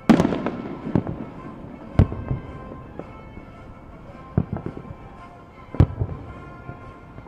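Aerial fireworks shells bursting: a loud bang right at the start, then separate booms about a second in, at two seconds, and a few more in the second half. Music plays faintly underneath.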